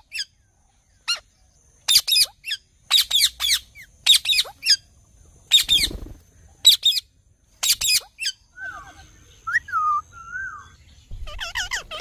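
Rose-ringed parakeets screeching: short, shrill calls in quick clusters, starting about two seconds in. About three-quarters of the way through come a few softer, lower whistled notes, then the screeching picks up again near the end.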